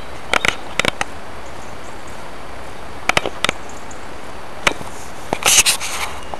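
Scattered sharp clicks and knocks over a steady hiss, coming a few at a time, with the loudest cluster near the end.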